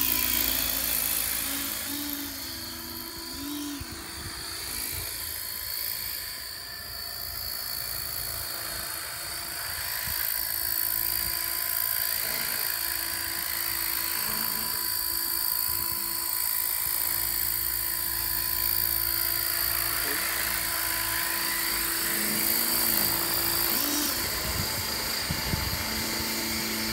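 Radio-controlled scale Gazelle model helicopter, built on a T-Rex 600 mechanism, with its motor and rotor making a steady whine as it flies, hovers low and sets down. The sound gets louder from about a third of the way in, as the model comes close.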